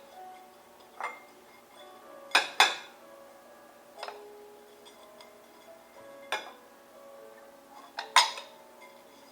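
Dishes and utensils being handled, knocking and clinking in a handful of sharp strikes. The loudest come as pairs about two and a half seconds in and near the end, over soft background music.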